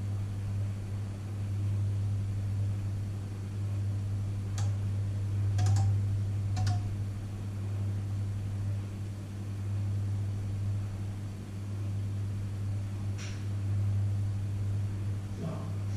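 Panasonic inverter microwave oven running: a steady low hum with its fan. A few light clicks come near the middle and once more later on.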